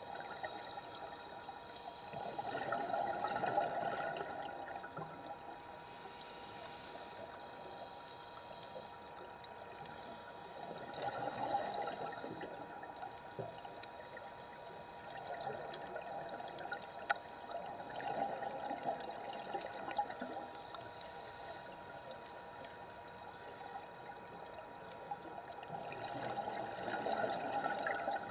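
Scuba diver's exhaled bubbles gurgling out of the regulator, heard from underwater as four swells of bubbling about 2–3 seconds long, one every seven to eight seconds in time with the diver's breathing.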